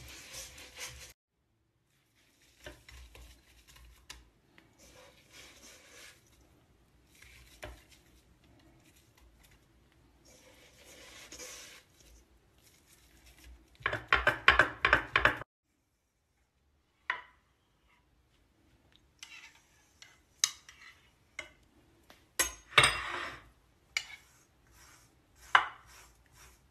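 Kitchen handling sounds in short separate bursts with silent gaps between: a wire whisk scraping through a semolina mixture in a stainless steel bowl, dough being pressed by hand into a glass baking dish, and a knife scoring the dough. The loudest bursts come about halfway through and again near the end.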